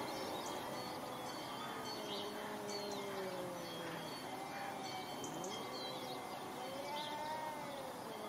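Cats in a territorial standoff yowling at each other: long, low, wavering howls that slowly rise and fall and overlap. Faint bird chirps in the background.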